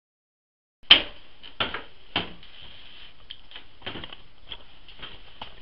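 Handling noise from a small trail camera being set in place: a sharp click about a second in, then scattered knocks and taps over a steady faint high hiss.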